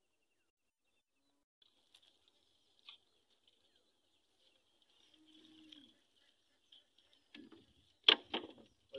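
Silent at first, then faint high-pitched chirping outdoors, flickering on and off. About eight seconds in, a few sharp knocks are the loudest sound.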